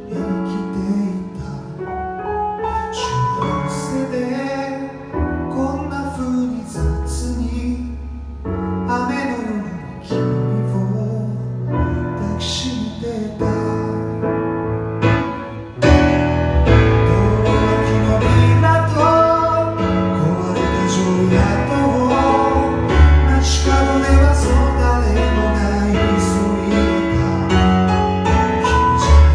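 Roland RD-700 stage piano played live through the PA: a slow ballad passage of chords over a bass line, growing fuller and louder about sixteen seconds in.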